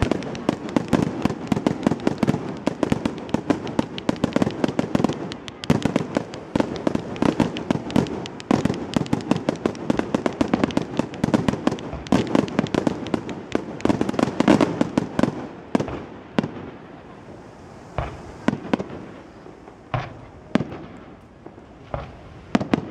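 Fireworks display: a rapid, dense barrage of shell bursts and launch bangs, thinning after about sixteen seconds to a few single bangs.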